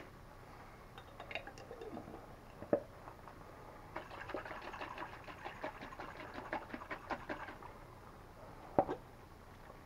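Water and leftover alfredo sauce sloshing and glugging in a glass sauce jar as it is shaken and emptied into a skillet of pasta, a fast, faint run of strokes from about four seconds in. There is a sharp knock about three seconds in and another near the end.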